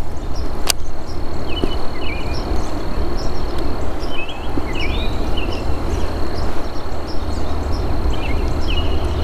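Outdoor ambience: a steady low rumble like wind on the microphone, a thin steady high insect whine, and scattered short bird chirps.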